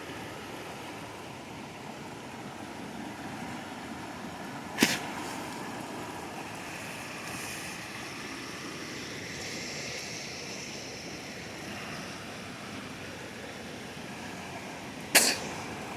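Steady rushing of a river running high after heavy rain. Two sharp knocks break in, one about five seconds in and one near the end.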